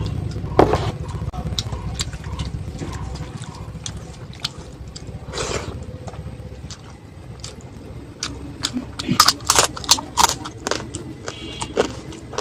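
Close-up eating sounds: chewing with sharp crisp crunches and wet clicks, thickest in a run of crunches about two thirds of the way in, over a low steady hum.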